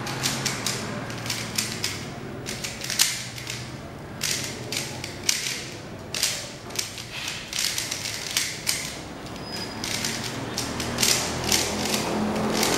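Moyu Aolong v2 3x3 speedcube turned rapidly by hand during a timed speedsolve, its plastic layers clacking in quick, irregular flurries of clicks.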